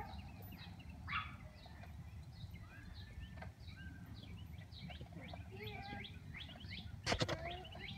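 Songbirds chirping and calling throughout, many short quick notes, over a steady low rumble. A single sharp knock about seven seconds in is the loudest sound.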